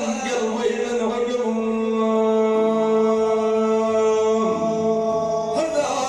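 Music: a single long, steady held note lasting about four seconds. It breaks off abruptly near the end, and a wavering melody line follows.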